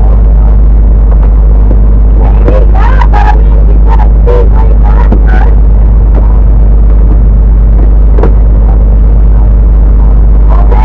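Storm-force wind buffeting the microphone on a sailboat in a squall: a loud, constant low rumble, with a few muffled voices breaking through briefly.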